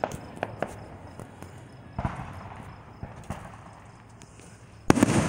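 Aerial fireworks going off at a distance: scattered sharp pops and cracks, then a sudden louder run of bangs near the end.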